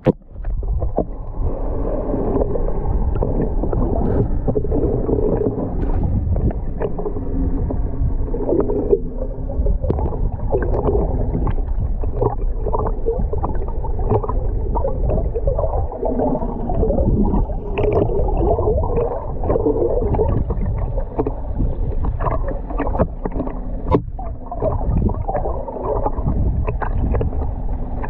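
Sea water heard through a submerged camera's housing: a steady, dull gurgling and sloshing, with many small clicks and knocks scattered through it.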